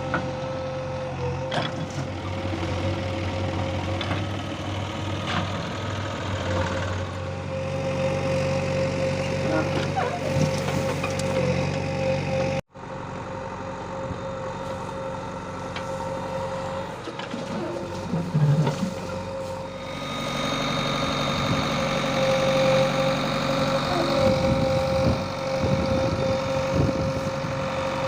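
Machinery running: a steady whining tone over a low hum. The sound cuts out for a moment about halfway through and comes back busier and louder in the last third.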